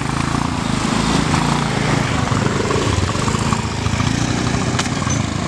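Small motor scooter engines running as two scooters pull away and ride off, a steady low engine note with fast even pulsing.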